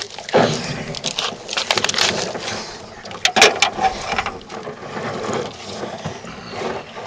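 Rubbing and rustling of a camera hanging against a person's body and clothing, with several sharp knocks and bumps on a small metal boat's gunwale as hands grip it to climb out. Heavy, laboured breathing from an asthma attack runs under it.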